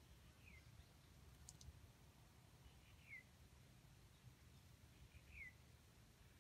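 Near silence with faint outdoor background; a bird gives three faint short downward-sliding chirps, about two and a half seconds apart, and a brief high click sounds once between the first two.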